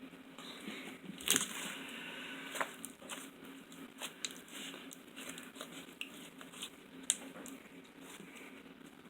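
Homemade glue-and-borax slime being stretched and handled by hand: a run of sticky crackles and small pops, with a sharper snap about a second and a half in and another a few seconds later.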